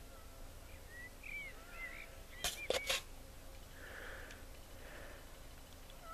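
A cat meowing faintly in short calls, and three sharp clicks in quick succession about two and a half seconds in.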